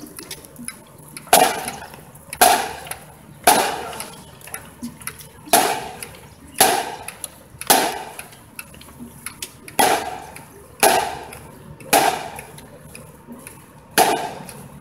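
Marching band drum line tapping out a steady street beat: one sharp, ringing strike about every second, with lighter taps in between.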